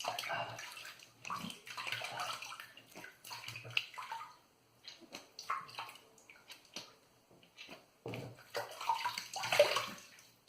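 Water splashing at a sink in irregular bursts as shaving lather is rinsed off, busiest at the start and again near the end with quieter spells between.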